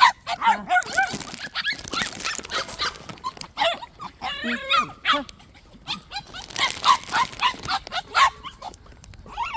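Puppies barking in many short, high yaps, with a wavering whine about four to five seconds in.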